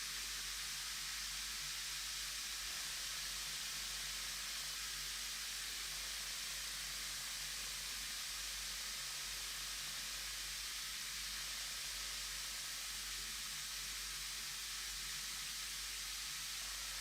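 Large bath bomb fizzing steadily as it dissolves in water, a constant hiss.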